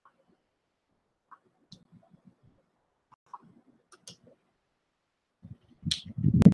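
Scattered faint clicks, then near the end a louder burst of low, uneven thumps and rustling with one sharp click: handling noise on a headset microphone.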